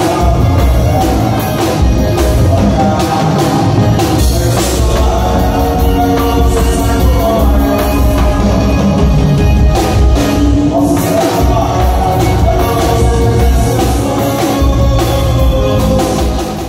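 Live forró band playing with a steady beat: accordion, zabumba drum and electric guitar, with a singer's voice over them.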